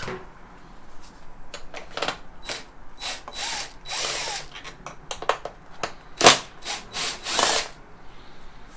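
Cordless power drill run in short bursts to back screws out of motorcycle bodywork: one longer run of about a second in the middle, then several short runs near the end, with clicks in between.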